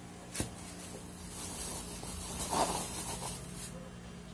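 Plastic film rustling and crinkling as a hand smooths it over a shrimp burger patty, with one short click about half a second in.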